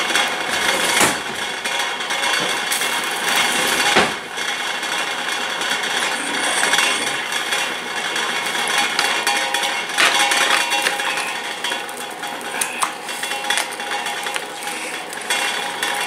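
A kitchen knife sawing through the carcass of a roast chicken on a metal baking sheet, scraping, with a few sharp knocks of the blade against the pan. The knife is one its user doubts is sharp enough, so it has to be worked back and forth.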